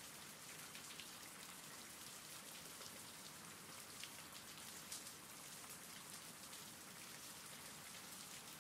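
Faint, steady recorded rain falling, with small scattered drop ticks.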